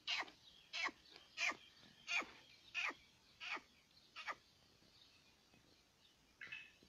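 Black francolin (Sindhi teetar) calling: a run of seven sharp notes, each falling steeply in pitch, about one every two-thirds of a second, then a pause and one more note near the end.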